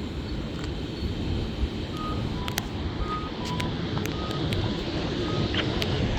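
Traffic noise with an accessible crosswalk signal's alternating two-tone beeps, a higher then a slightly lower tone, starting about two seconds in and coming roughly once a second, along with a few sharp ticks.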